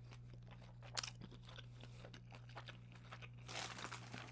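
Close-miked chewing of a breaded chicken strip, with crunches and wet mouth clicks. There is a sharper crunch about a second in and a denser run of chewing near the end.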